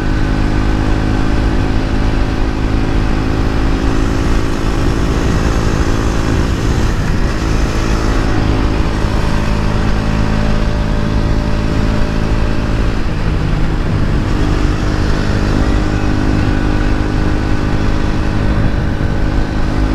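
KTM RC sport bike's single-cylinder engine holding a steady note at cruising speed, heard from the rider's seat, with wind rushing over the microphone.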